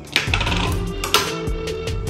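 Background music with a steady beat, overlaid by a few sharp clinks, one near the start and one about a second in.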